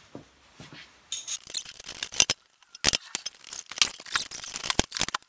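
Irregular metallic clinks and clicks from hand tools and hardware on a Craftsman snowblower's discharge chute as it is unfastened for removal. They begin about a second in and pause briefly around the middle.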